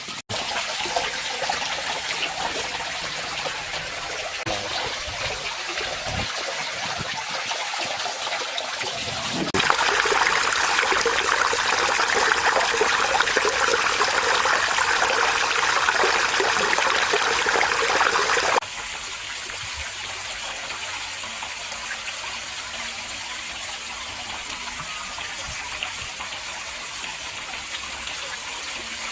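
Water from a garden pond waterfall splashing and trickling steadily. It gets louder about a third of the way in and drops back suddenly about two-thirds of the way through.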